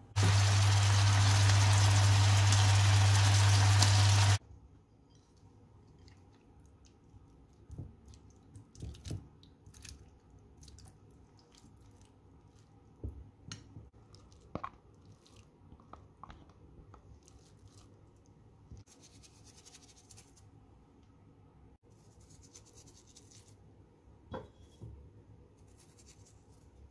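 A loud steady rushing noise with a low hum for about the first four seconds, cutting off suddenly. Then scattered soft scrapes, taps and clinks of a silicone spatula and plastic bowls against a glass mixing bowl as fried mushrooms and sautéed carrot and onion are tipped onto rice.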